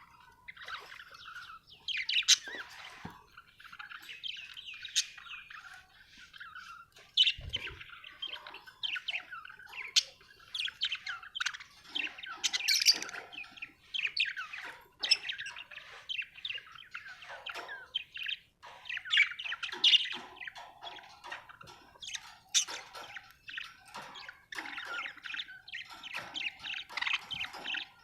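Budgerigars chirping and warbling in a continuous stream of quick, varied chirps and chatter, with a brief low thump about seven seconds in.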